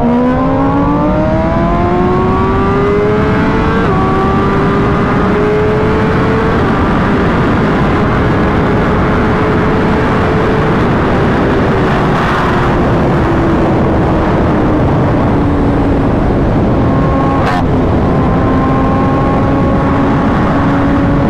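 A vehicle engine revs up for about four seconds, drops briefly as it changes gear, then runs on at a steady, slowly easing speed under a loud, constant rushing noise.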